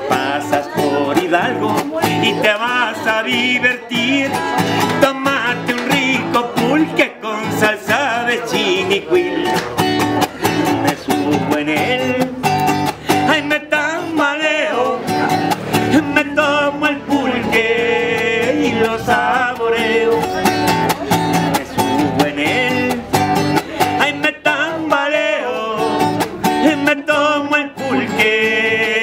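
Background music led by strummed acoustic guitars, with a steady folk rhythm.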